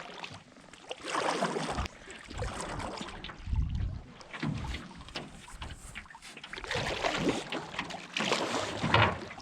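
Irregular rustling, knocking and water noises of people moving about in a canoe, with some wind on the microphone.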